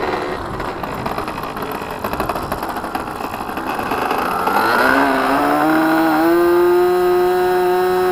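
Thunder Tiger .61 glow engine on an RC plane running roughly at low revs, then opened up about four seconds in, its pitch rising over a couple of seconds to a steady high-rev run.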